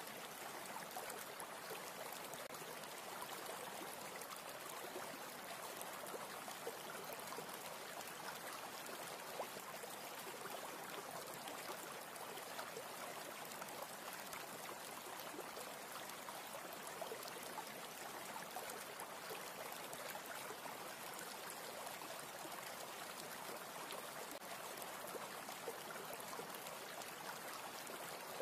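A steady, even hiss like running water, unchanging and unbroken throughout.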